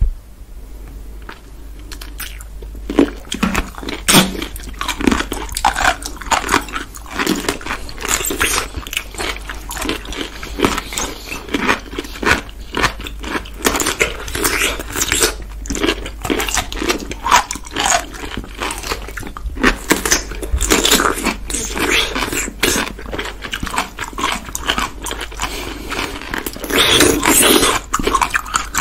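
Two people biting into and chewing whole pickles close to the microphone: repeated crisp, wet crunches, quieter for the first couple of seconds.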